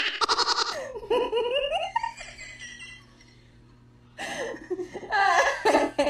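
A person laughing in quick bursts that trail off, a short pause, then more laughing and voice sounds starting up again.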